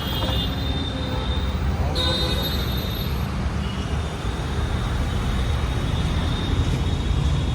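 Steady low rumble of vehicles running in road traffic.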